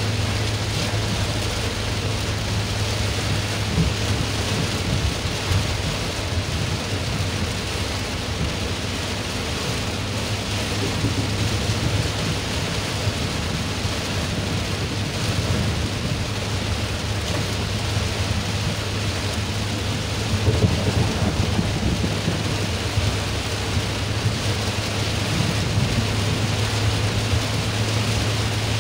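Heavy rain on a moving car, heard from inside the cabin: a dense, steady patter on the roof and windshield over a constant low drone of engine and road. A brief swell of low rumble comes about two-thirds of the way through.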